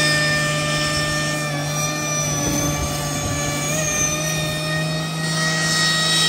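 Turbocharged diesel pickup engine held at high revs through a burnout, a steady loud drone with a high turbo whistle over it that rises and falls around the middle.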